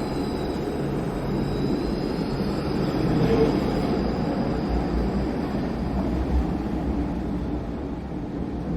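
Steady low rumble with a hiss of ambient noise, easing off slightly near the end.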